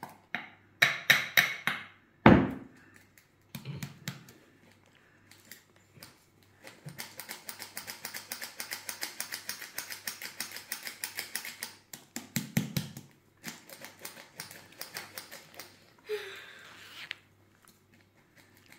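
Small handheld cup-shaped metal flour sifter clicking rapidly and evenly as it is worked, in runs with short pauses. There is also a single dull knock about two seconds in.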